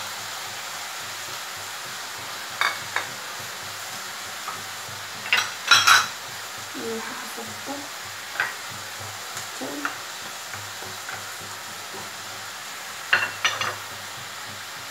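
Onions and chicken breast sizzling in oil in a frying pan, a steady frying hiss, while they are stirred with a wooden spoon. A few short clinks and knocks of a bowl and the spoon against the pan break in, the loudest about six seconds in.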